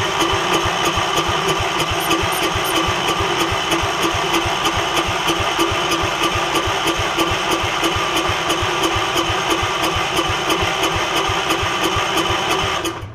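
Electric starter cranking the Gravely 5665's Kohler engine, a steady starter whine with an even beat of about four compression pulses a second, cutting off suddenly near the end. The engine is flooded with fuel and turns over without catching.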